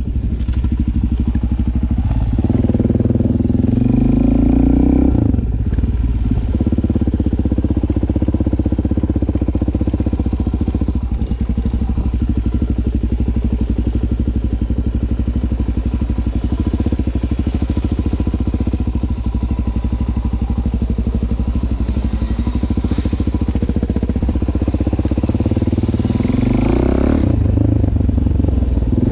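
Dirt bike engine running while riding, its pitch climbing over the first few seconds and dropping back about five seconds in, then holding steady before another short rise near the end.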